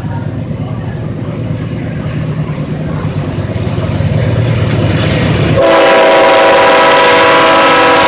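CSX diesel-electric locomotive approaching, its engine rumble growing louder. About five and a half seconds in, its air horn begins a long blast of several tones sounding together.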